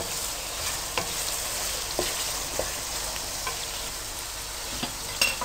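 Chicken pieces and chopped onion frying in oil over high heat with a steady sizzle, while a spatula stirs and clicks against the aluminium wok about once a second.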